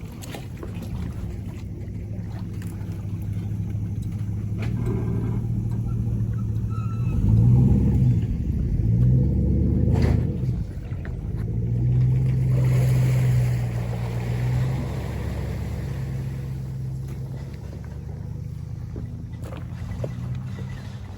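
An engine running steadily, with its pitch rising and falling between about 7 and 10 seconds in, then holding steady again.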